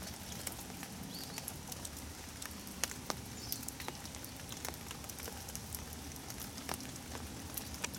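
Rain falling, with scattered raindrops tapping irregularly on an umbrella over a steady hiss of rain.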